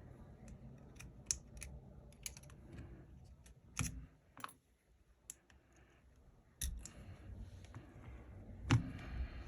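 Scattered small sharp clicks and taps of repair tools and tiny parts on an opened iPhone 12 Pro Max during internal disassembly, with two louder knocks about four and nine seconds in.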